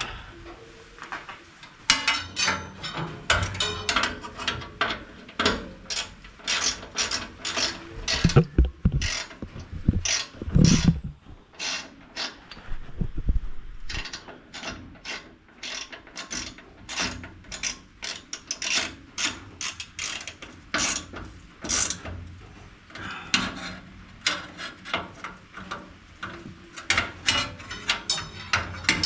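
Hand ratchet wrench clicking in quick runs of strokes with short pauses between, as bolts on the baler are run in and tightened. A couple of heavier low knocks come near the middle.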